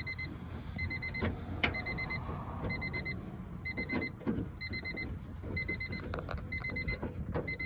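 Car's electronic warning chime beeping steadily, about one short high beep a second, with scattered clicks and knocks from work on the door.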